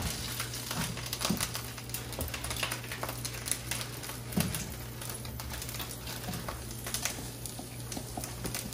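Bok choy leaves crackling and sizzling as they are laid into a hot wok, a dense irregular patter of small pops, over a low steady hum.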